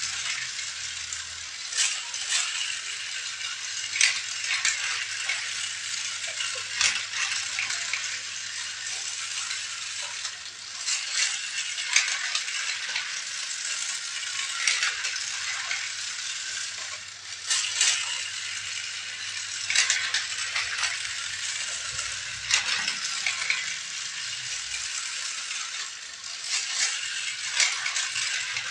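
Small hard objects rattling and clattering over a continuous rustling hiss, with sharp clicks every second or two.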